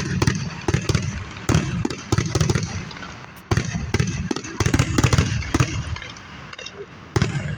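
Aerial fireworks going off in a rapid string of booms and crackling bursts over a heavy low rumble, thinning out a little near the end before another sharp bang.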